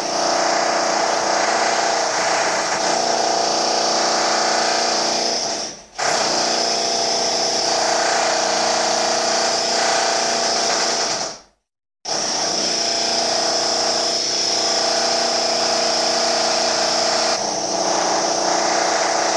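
Electric drill running with a steady whine. It dips briefly about six seconds in, cuts out for a moment at about eleven and a half seconds, then starts again and runs on.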